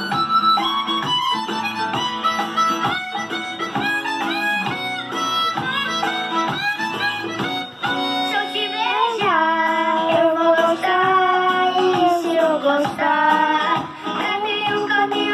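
An acoustic song playing from a television's speakers: guitar accompaniment under a melody line, with a young singer's voice. The melody moves in quick notes at first and turns to long held notes about nine seconds in.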